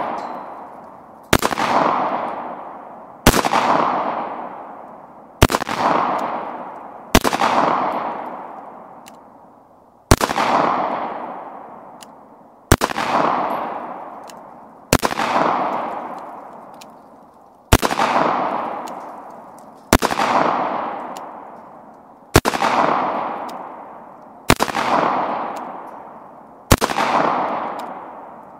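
Semi-automatic pistol fired slowly, about a dozen single shots spaced roughly two to two and a half seconds apart, each sharp report trailing off in a long echo.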